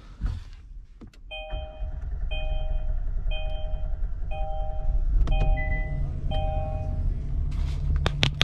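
2019 Kia Sorento engine started with the push button and running, fed from a pressurised fuel-injector cleaning canister in place of its failed fuel pump. A two-tone dashboard warning chime repeats about once a second, six times, over the running engine, and a couple of clicks come near the end.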